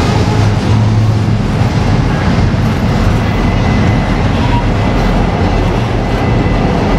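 A train rolling past, with a loud, steady rumble of wheels on the rails.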